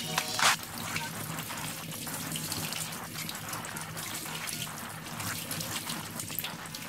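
Kitchen tap running steadily into a stainless steel sink, the stream splashing over a bunch of chives being rinsed by hand.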